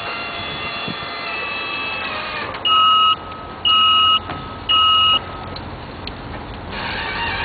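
Three loud electronic warning beeps, each about half a second long and about a second apart, over a steady mechanical hum.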